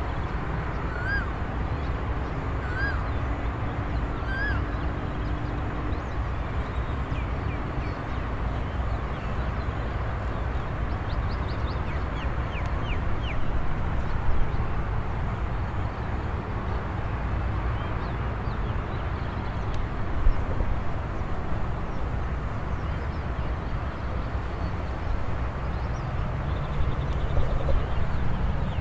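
Outdoor dawn ambience: a steady low rumble with birds calling over it. One bird gives a short rising call four times in the first five seconds, about a second and a half apart, and short high chirps come in around the middle.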